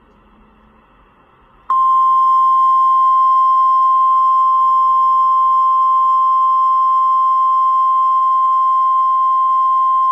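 NOAA Weather Radio 1050 Hz Warning Alarm Tone: a single loud, steady beep that starts about two seconds in and holds without a break. It is the alert tone that announces a warning broadcast, here a tornado warning.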